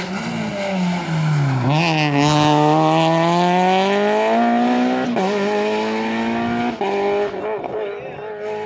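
Peugeot 208 rally car braking into a hairpin, engine pitch dropping, with a brief squeal of tyres, then accelerating hard out of it, the engine revving up through two quick upshifts and fading as it drives away.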